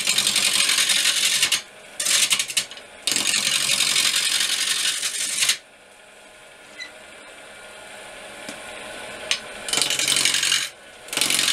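A roughing gouge cutting a spinning oak blank on a wood lathe, taking the corners off the square blank in loud, rattling bursts of cutting noise. About halfway through the gouge comes off the wood for a few seconds and only the lathe's quiet running is heard, then cutting starts again near the end.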